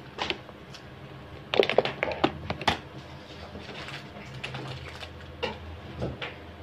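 A quick run of clicks and light knocks, bunched together about a second and a half in, with a few more scattered later: small hard objects being handled and set down. A steady low hum runs underneath.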